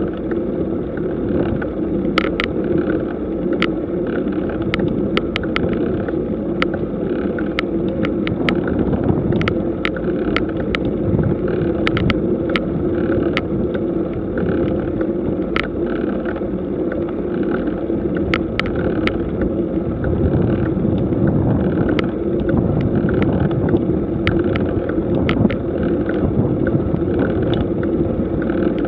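Steady muffled ride noise from a bicycle climbing slowly on asphalt, picked up by a camera mounted on the bike, with frequent sharp clicks and rattles from the bike.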